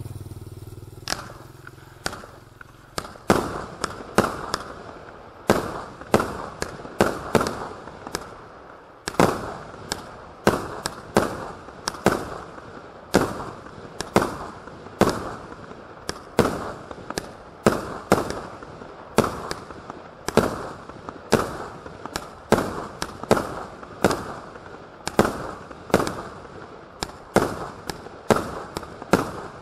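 A 36-shot firework cake firing red-tailed shells that burst into red and silver coco pistil stars: a long, fast series of sharp bangs from the launches and bursts, roughly two a second, starting about a second in, with a rushing noise between them.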